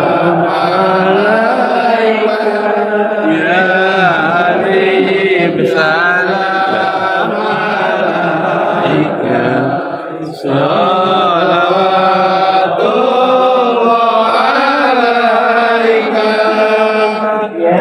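Congregation chanting sholawat, Arabic devotional praise of the Prophet, together in a continuous melodic chant, with a short break about ten seconds in.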